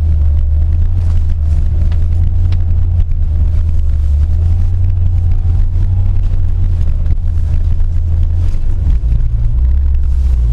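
Lada car's engine and tyres droning steadily, heard inside the cabin while driving over snow-covered ice; the engine note shifts about nine seconds in.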